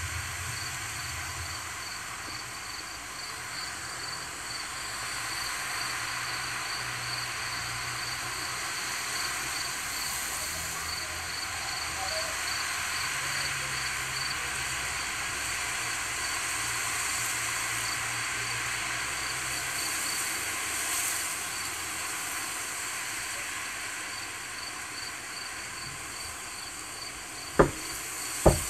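Steady hiss of wind through grass, with an insect, likely a cricket, trilling in an even, rapid pulse and a low rumble of wind buffeting the microphone now and then. A couple of sharp knocks come near the end.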